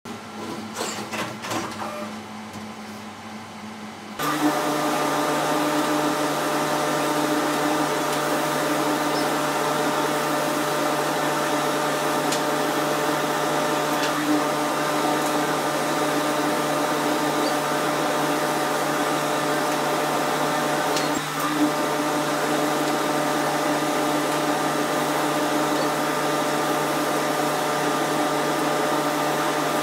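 Laser cutter running: a quieter start with a few clicks, then about four seconds in a loud, steady mechanical whir with a constant hum sets in and holds unchanged, with an occasional faint tick.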